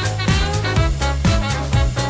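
Upbeat background music with a steady low beat about twice a second.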